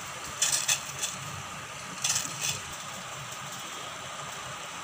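Peeled, hollowed parwal (pointed gourd) dropped into a steel pot of water, giving short splashes about half a second in and again about two seconds in, over a steady low hum.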